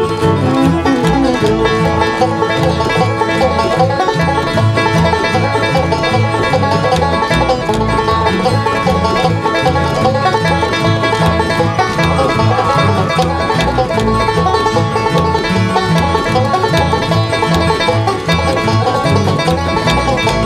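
Bluegrass string band playing with a steady beat, guitar and upright bass among the instruments, with the clog taps of dancers' shoes clicking along.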